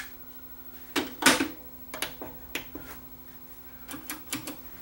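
Scattered clicks and knocks from handling the cassette deck, the loudest a little over a second in, with a cluster of lighter clicks near the end, over a faint steady hum.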